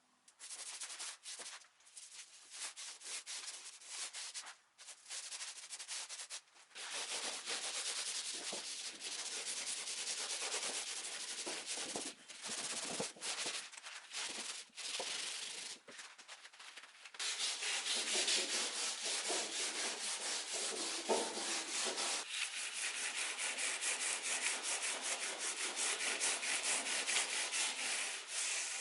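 Wood surface being sanded by hand with sandpaper: a rasping rub in uneven strokes with short breaks, turning steadier and louder a little past the halfway point.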